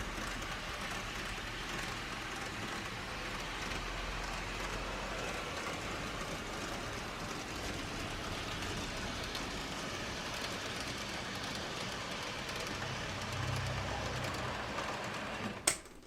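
A train running steadily along the rails, with an even rolling noise. A sharp click comes near the end, and the sound then cuts off.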